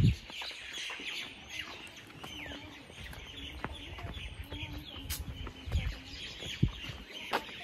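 Many small birds chirping and twittering all through, with a few short low thumps.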